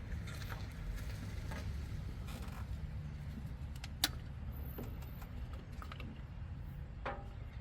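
Spark plug wires being handled and routed around the engine: light rustling and scattered small clicks, with one sharp click about four seconds in, over a steady low background rumble.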